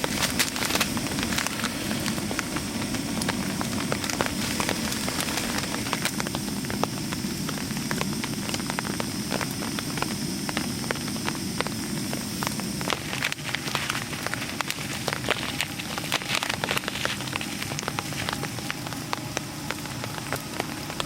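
Open wood campfire crackling with irregular sharp pops over a steady hiss, above a low rumble that fades out about thirteen seconds in.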